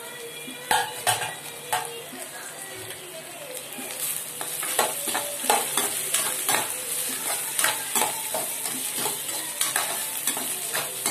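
Vegetables stir-frying in a black pan: a steady sizzle, with a metal spoon clattering and scraping against the pan, a few strokes at first and then faster and more often from about four seconds in.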